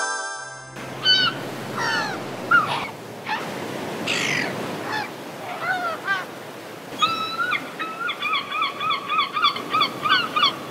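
Seagulls calling: scattered cries, then a fast run of repeated calls, about three or four a second, in the second half.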